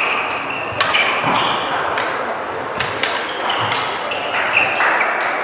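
Badminton rally: sharp racket strikes on the shuttlecock about once a second, with short high squeaks from shoes on the court floor, over the general noise of a busy sports hall.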